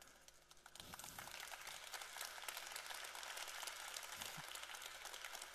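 Audience applauding, a steady patter of many hands clapping that starts about a second in.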